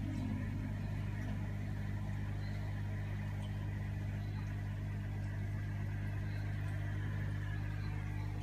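Steady low electrical hum of running aquarium equipment, one low droning tone with a few fainter higher tones over it and a light hiss, unchanging throughout.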